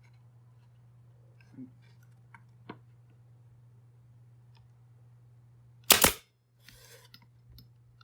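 A pneumatic pin nailer fires once about six seconds in with a sharp bang, driving a pin into the wood. A few light clicks of wood pieces being handled come before it.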